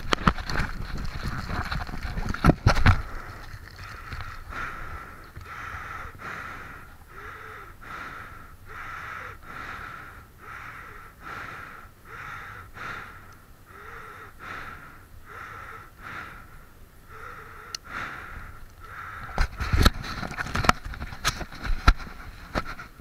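Roll-top dry bag being packed and rolled shut by hand: repeated crinkling and rustling of the bag fabric as the top is folded down, about one fold a second. Louder knocks and handling bumps come near the start, and sharp clicks and knocks come near the end as the bag is picked up.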